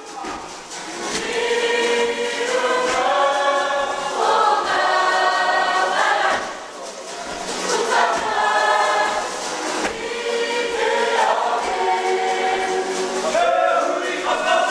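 A large kapa haka group singing together in unison, a Māori waiata sung in long held phrases with sliding pitches and a brief breath between phrases about six and a half seconds in.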